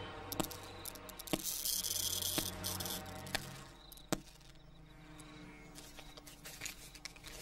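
Faint footsteps: a few slow knocks on a hard floor, about a second apart, over a low room hum and brief patches of hiss.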